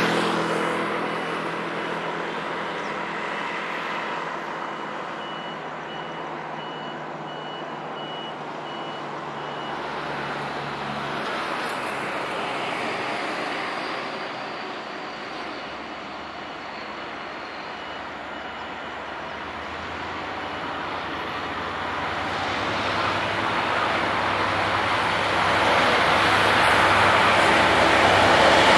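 EMD G22-CU diesel-electric locomotive approaching at the head of a freight train, its engine drone growing steadily louder over the last ten seconds or so. Before that, traffic noise, with a repeated high electronic beep from about five to ten seconds in.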